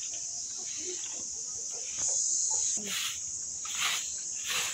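Steady high-pitched insect chirring throughout. From about three seconds in, a grass broom sweeps over a dirt yard in regular swishing strokes, about one stroke a second.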